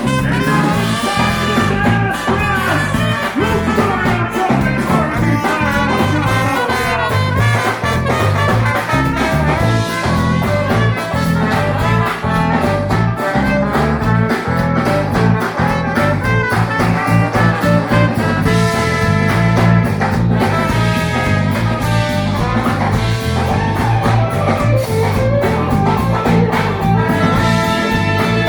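Live band playing an upbeat song with a steady beat.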